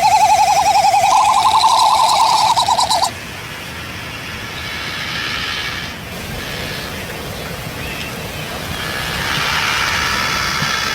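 A bird's loud trilling call, a fast warble that rises slightly in pitch and lasts about three seconds, then stops. Steady background hiss with faint high calls follows.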